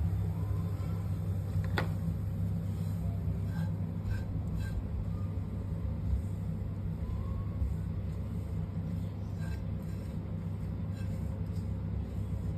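Silicone spatula scraping roasted ground cashews and almonds out of a nonstick kadhai, with one sharp tap against the pan about two seconds in and a few light scrapes and ticks after. A steady low hum runs underneath throughout.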